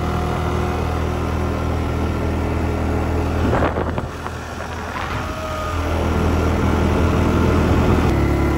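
ATV engine running steadily at low revs, with a brief rattle about three and a half seconds in.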